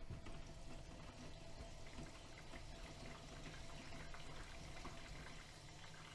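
AEG Öko-Lavamat washing machine early in a 60 °C coloured wash, with water splashing and trickling in the drum over a low, steady hum and light ticks.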